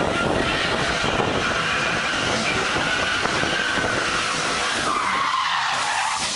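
A car doing a burnout: its tyres spin and squeal on asphalt under a revving engine. The squeal falls in pitch about five seconds in.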